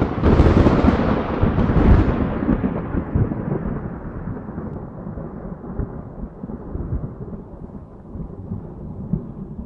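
A thunderclap: a sharp crack right at the start, then a deep rumble that rolls on and slowly fades.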